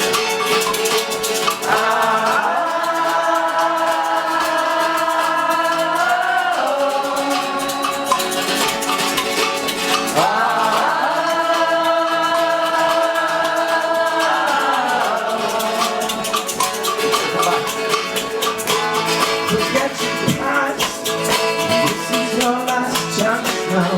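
Live band music: a shaker keeps a fast steady rhythm over guitar, while voices twice hold a long chord that slides down in pitch as it ends.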